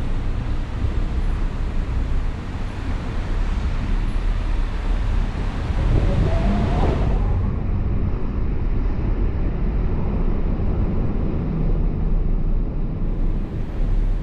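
Car driving on a wet city road: a steady low rumble of road and tyre noise with a hiss of the wet surface that falls away about halfway through. A brief louder swell with a rising tone comes just before that.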